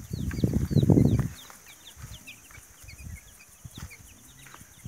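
A loud burst of leafy rustling and crackling in the first second or so. Then quieter scattered scrapes, with faint, quick, falling peeps of small birds repeating throughout.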